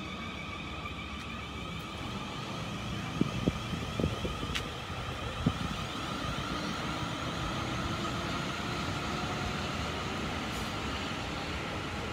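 South Western Railway Class 450 Desiro electric multiple unit passing, its traction motors giving a steady whine in several tones over a low rumble. A few sharp knocks, likely the wheels over rail joints, come between about three and five and a half seconds in.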